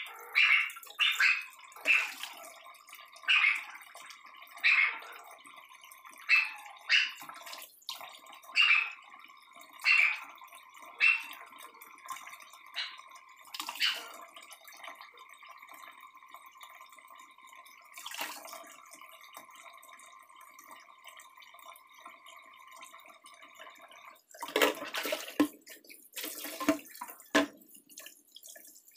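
Tap water running steadily into a stainless steel sink while raw shrimp are cleaned under it, with a string of short sharp snips from kitchen scissors about once a second through the first half. Near the end the water splashes louder and fuller as the hands work the shrimp in the stream.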